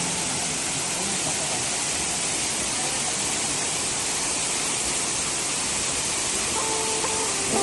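Waterfall pouring: a steady, even rush of falling water. Faint music comes in near the end.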